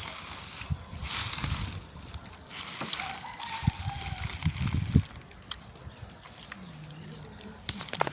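Chickens in a poultry house: a few scattered calls over a rustling noise that dies down after about five seconds.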